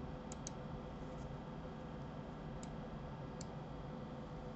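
Computer mouse clicking: a quick pair of clicks just after the start, then three single clicks spread over the next few seconds, over a faint steady hum.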